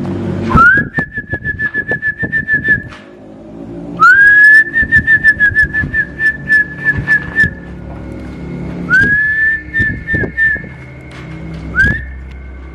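A person whistling: four whistles, each sliding up in pitch and then held with a fast warble, the last one brief.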